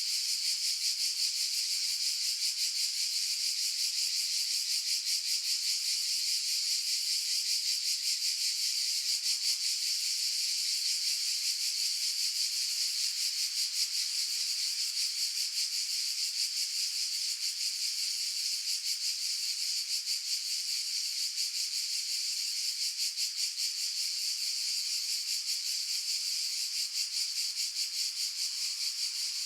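Cicadas buzzing in a steady, high-pitched chorus with a fast, even pulsing texture.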